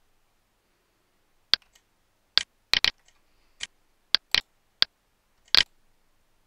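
Computer mouse clicking: about nine sharp, irregular clicks, some in quick pairs, as the simulator's controls are worked.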